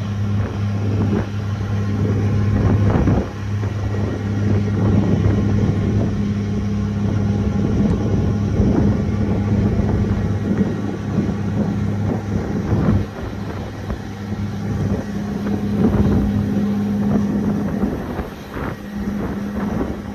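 Ferry's engines running with a steady low hum, under wind rushing over the microphone.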